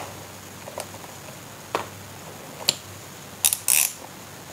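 Scattered clicks and snaps of plastic and metal parts as an electric motorcycle battery pack is pulled apart by hand, with a short scraping rasp near the end.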